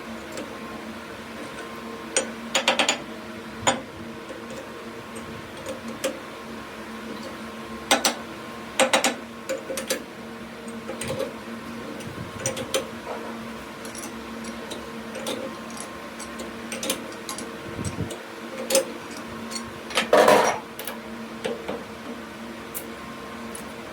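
Steady machine motor hum with scattered sharp metallic clinks and knocks from metal parts being handled, the loudest cluster about twenty seconds in.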